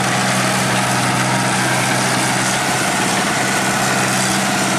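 Engine of an 8060 rice combine harvester running steadily as the machine drives slowly across the field, a constant low hum with an even hiss over it.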